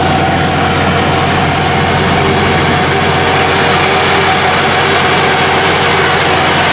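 A heavy engine running steadily at an even speed, a constant hum with several held tones.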